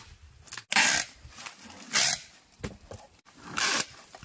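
Packing tape pulled off its roll in three short, rasping pulls as it is wound around a plastic-covered bucket to seal it, with the plastic sheet rustling between pulls.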